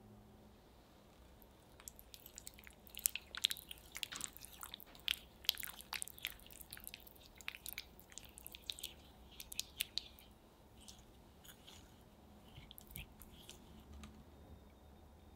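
Spatula stirring melted white chocolate and butter in a glass bowl: a quick, irregular run of small clicks and taps against the glass that thins out in the last few seconds.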